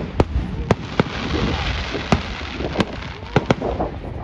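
Fireworks display going off: a string of sharp bangs, about six in four seconds, over a spell of dense crackling about a second in.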